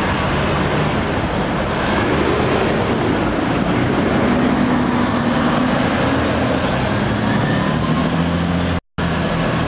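Busy city street traffic noise, with a double-decker electric tram passing close by and low engine hums from road vehicles. The sound drops out for a moment near the end.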